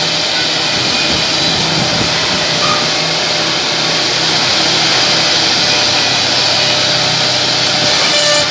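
Ten-spindle CNC mortising machine cutting mortises into clamped wooden parts: a loud, steady rush of router spindles in wood.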